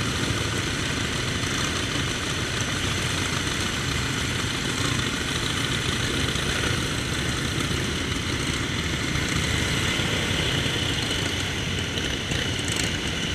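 Antique motorcycle engines idling and running together, a steady engine sound with rapid firing pulses and no pauses.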